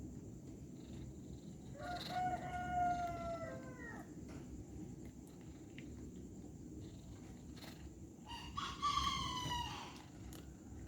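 A rooster crowing twice, each crow about two seconds long, held and then falling away at the end, over a steady low rumble.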